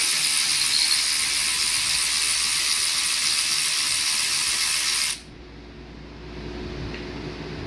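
Pneumatic air ratchet running: a loud, steady high hiss of air with a mechanical buzz that cuts off suddenly about five seconds in.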